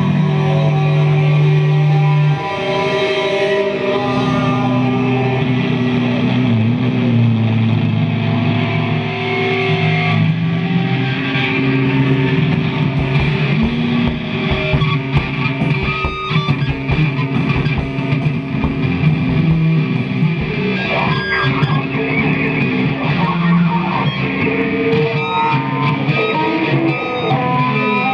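Live noise music: layered sustained drones and held tones with guitar-like sounds, loud throughout. A heavy low drone cuts off about two seconds in, and from about halfway on the texture fills with quick clicks and crackles.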